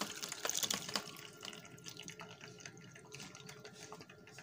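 Chicken boiling stock poured through a fine mesh strainer into a bowl, splashing and trickling. The pour is busiest in the first second, then tapers to a faint trickle.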